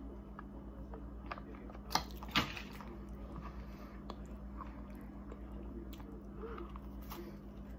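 Close-miked chewing of sweets, with small wet clicks throughout and two sharp clicks about two seconds in.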